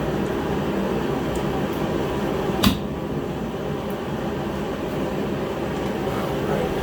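Steady hum of a running heater, with one sharp plastic snap about two and a half seconds in: a cowl panel's snap clip popping loose.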